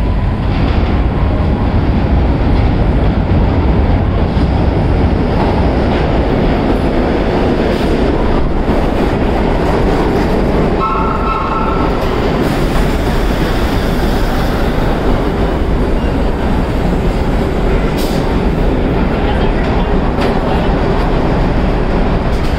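Vintage R1-9 subway train rumbling into an underground station and slowing along the platform, its wheels clattering on the rails. A short high tone sounds about eleven seconds in.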